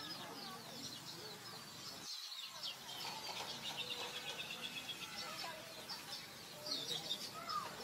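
Small birds chirping and twittering, many short high calls, with a rapid trill from about three to five seconds in.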